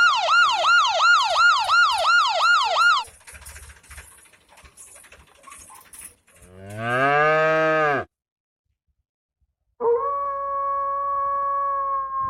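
A fast warbling siren, sweeping up and down about three times a second, for three seconds. About three seconds later a cow moos once, rising and falling in pitch, and after a silence a steady held tone starts about two seconds from the end and sinks slightly in pitch.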